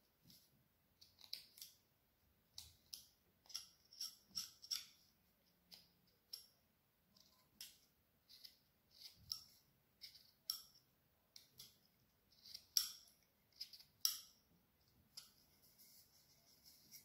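Carving knife slicing short cuts into branch wood, each stroke a crisp little scrape as a shaving comes away, irregular at a little over one a second, fainter near the end.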